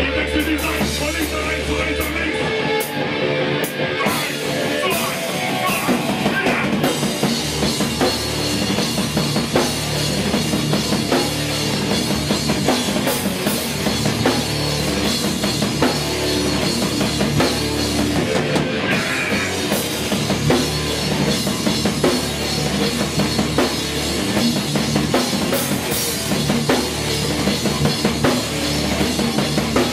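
Hardcore punk band playing live, with distorted electric guitar and a driving drum kit, heard as a loud, dense wall of sound.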